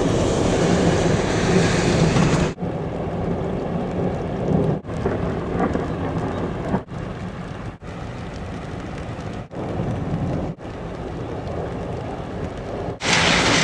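Steady rain with rumbling thunder, heard as a string of short spliced clips, each joined by a brief dropout.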